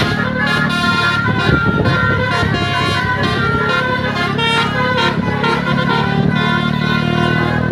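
Bus telolet horns playing a melody of overlapping multi-note tones that step from pitch to pitch, over bus engines running.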